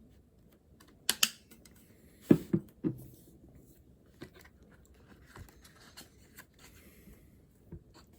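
Handling sounds at a study desk: scattered light clicks and taps, with a sharp knock about a second in and three louder knocks in quick succession around two and a half seconds in.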